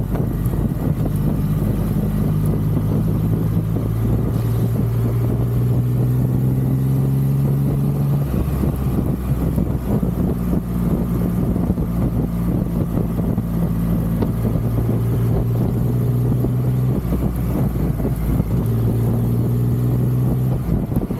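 Triumph Rocket 3's three-cylinder engine running steadily under way, its note shifting in pitch several times as speed and gear change, with wind and road noise rushing over the microphone.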